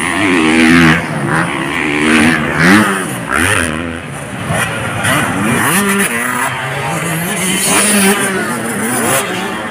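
Several dirt bikes racing on a motocross track, their engines revving with overlapping pitches that rise and fall as the riders throttle on and off over the jumps.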